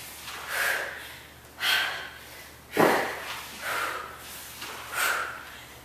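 A woman breathing hard from exercise during push-ups, short heavy breaths about once a second. A couple of them start sharp and sudden.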